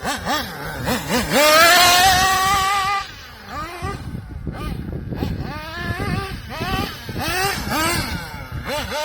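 SH21 two-stroke nitro engine in an HPI Trophy 3.5 1/8-scale RC buggy, running through a racing exhaust on nitro fuel and revving up and down. It holds a high rev a second or so in, drops back, then goes through a string of quick throttle blips.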